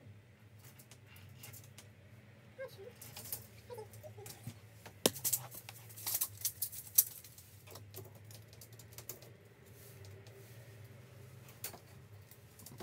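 Scattered light clicks and taps from handling a tape measure and pencil while measuring and marking a door frame, with a cluster of sharper clicks about five to seven seconds in. A low steady hum runs underneath.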